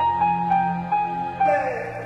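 Background music: a slow melody of held high notes over a sustained low drone, with a falling sweep of notes about one and a half seconds in.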